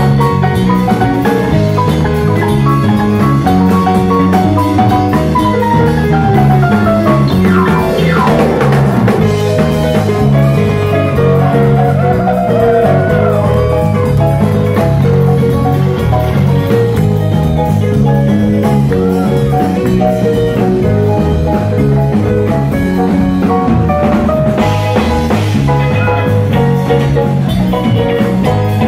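Live band playing: electric guitars, bass, drum kit and keyboards, with a lead line whose notes bend in pitch about a quarter of the way in.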